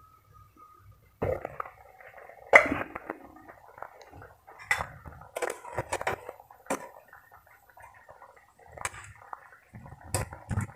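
A metal wok lid clanks as it is lifted off, then milkfish steaks simmer in soy-kalamansi sauce in the wok with steady crackling and scattered pops, clicks and light knocks against the pan.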